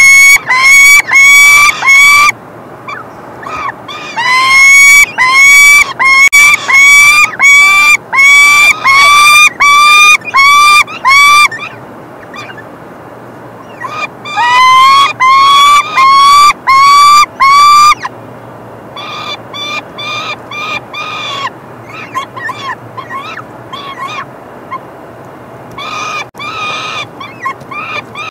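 Peregrine falcons at the nest box calling loudly and repeatedly, about two rising notes a second, in several runs with short pauses between, turning quieter in the last part.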